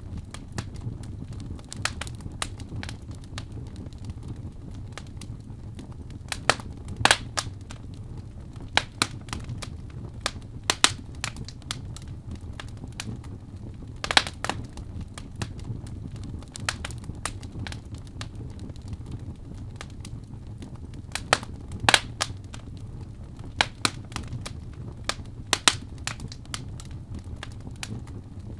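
Wood fire burning in a fireplace: a steady low rumble of the flames with irregular crackles and occasional sharp pops.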